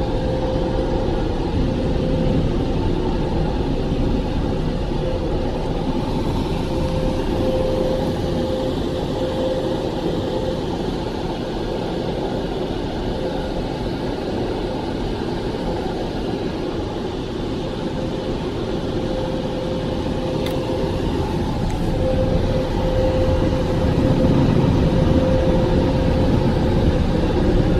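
Automatic drive-thru car wash machinery running, heard from inside the car: a steady rushing with a constant humming whine that fades out midway and returns, getting louder near the end.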